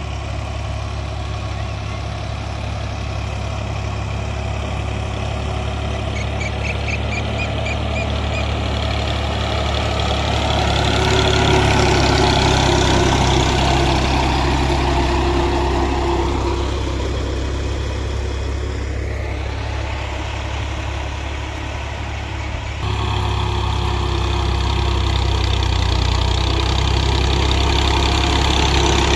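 Al-Ghazi tractor's diesel engine running steadily under load as it drags a rear levelling blade through loose soil. It grows louder toward the middle, and the level jumps abruptly about two-thirds of the way through.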